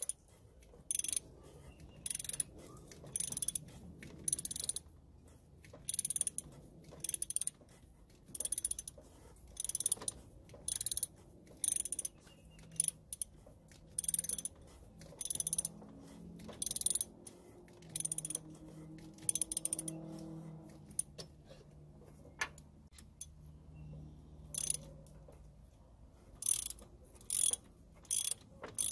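Ratchet wrench clicking in short runs about once a second as a bolt on the power steering pump bracket is run in, pausing for a few seconds about two-thirds through.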